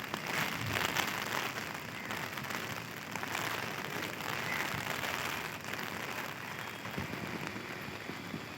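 Rain falling steadily, an even hiss of many drops.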